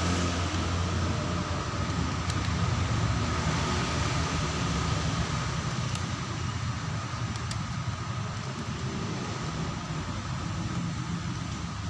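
Steady background rumble with a low hum, and a few faint clicks as the screws and cover of a laptop's RAM compartment are worked loose.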